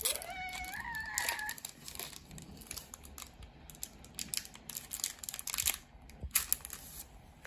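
Foil wrapper of a Pokémon trading card booster pack crinkling and crackling as it is torn open by hand and worked apart. In the first second and a half, a voice gives one drawn-out call that rises in pitch.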